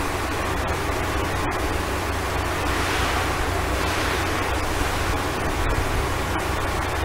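Steady rushing background noise, a broad hiss over a low hum, without change or distinct events.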